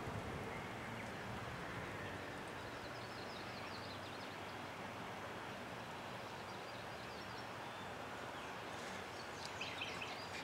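Steady outdoor background noise with faint, short, high chirping calls repeated a few times, and a few light clicks near the end.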